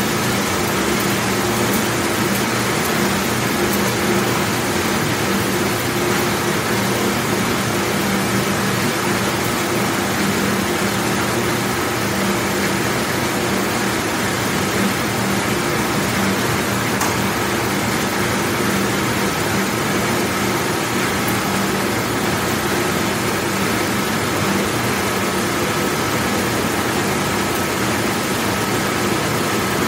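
Large Champion commercial dishwashing machine running: a steady, unbroken rush with a constant hum under it.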